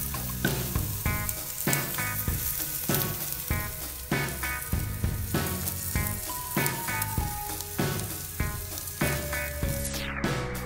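Background music with a steady beat and bass notes, over a steady high sizzle from chicken pieces grilling on a charcoal grill. The sizzle drops out near the end while the music carries on.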